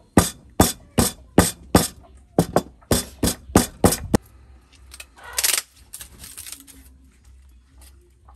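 Wooden pestle pounding in a wooden mortar: sharp, evenly spaced knocks about two and a half a second that stop about four seconds in. A brief rustle follows about a second later.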